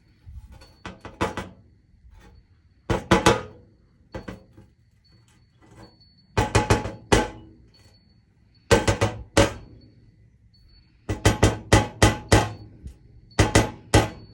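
Schlage deadbolt lock housing being tapped against a hard surface in short bursts of quick knocks, about six bursts a couple of seconds apart, shaking the pins and springs out of it for rekeying.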